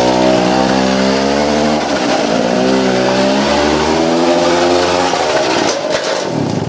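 An engine running at high revs, its pitch wavering slightly, cutting in suddenly and fading away near the end.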